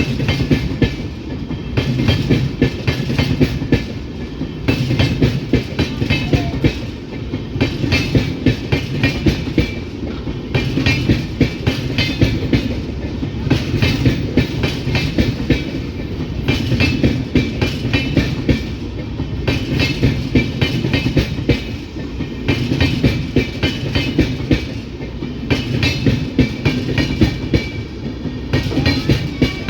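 A long train's wagons rolling past with a steady rhythm of wheel clatter over the rail joints. The clacks come in groups about every two seconds over a low rumble, with a high metallic ringing from the wheels and rails.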